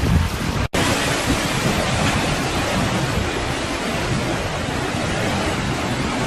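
Storm surf and wind during a typhoon: a steady rushing noise of waves, with wind buffeting the microphone. The sound breaks off for an instant under a second in, then goes on.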